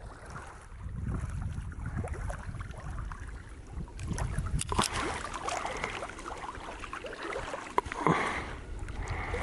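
Wind rumbling on the microphone over choppy lake water, with small waves lapping. A few sharp ticks come about halfway through and again near the end.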